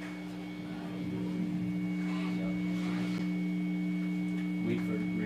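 Steady electric hum from the rehearsal room's amplifiers and PA: a low drone with a thin high whine above it, unchanging throughout.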